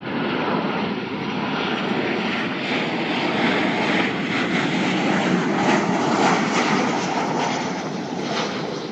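Airliner engines running: a steady rushing noise that swells gently and eases slightly near the end.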